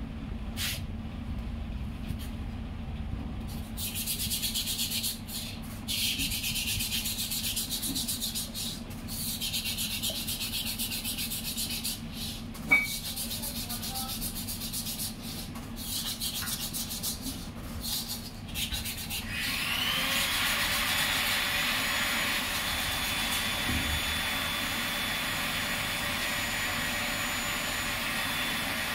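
Repeated short stretches of rubbing, scraping noise from engine-rebuild work. About two-thirds of the way through, a power tool's motor spins up with a rising whine and then runs steadily.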